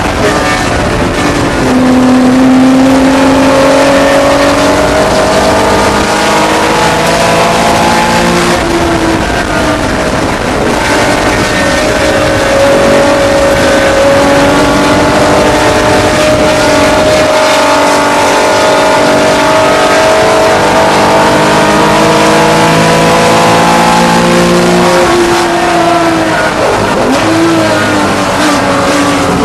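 Porsche 911 ST racing engine, a 2.5-litre air-cooled flat-six, running hard under race load. Its pitch climbs slowly through long pulls, falls back about nine seconds in, climbs again, and dips sharply then recovers near the end.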